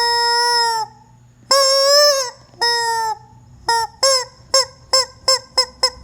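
Rubber squeeze chicken toy squawking as it is squeezed: three long squawks, then a run of short squeaks coming quicker and quicker.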